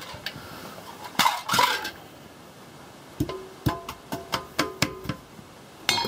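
Metal pans and cutlery knocking against each other in a stainless-steel kitchen sink. There is a brief scrape about a second in, then a string of sharp, ringing clinks in the second half.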